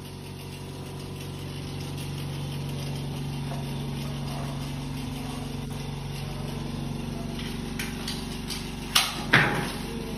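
A steady low machine hum that swells slightly and drifts in pitch, with two sharp knocks half a second apart near the end, the second trailing off in a brief rattling hiss.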